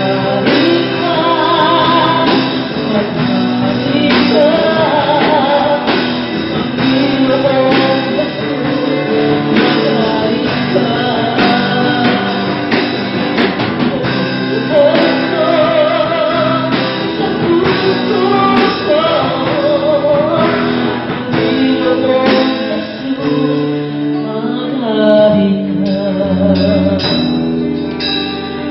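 A woman singing a worship song into a microphone over amplified instrumental accompaniment, her voice wavering with vibrato on held notes.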